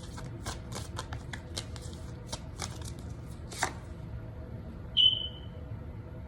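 Tarot cards being shuffled by hand, a quick run of irregular card clicks and flicks that stops about four seconds in. About a second later comes a single short, high ping that fades quickly.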